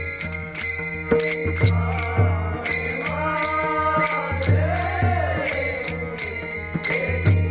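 Varkari bhajan music: a male voice sings a devotional abhang with gliding, drawn-out notes in the middle, over a steady beat of clashing taal hand cymbals and low pakhawaj drum strokes.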